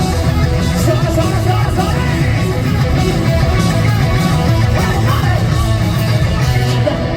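Live rock band playing loud, with electric guitar to the fore over a full band.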